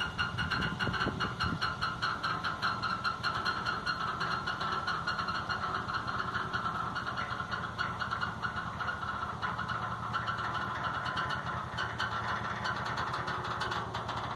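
Narrowboat engine idling with a steady, even throb.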